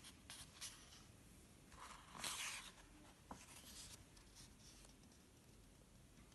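Near silence with faint handling noise, a soft paper rustle about two seconds in and a few small clicks, as the picture book is held close to the camera.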